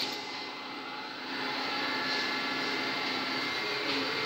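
Steady drone of workshop machinery running, a constant hum and hiss with a few faint steady tones. It is slightly quieter in the first second and a half, then holds level.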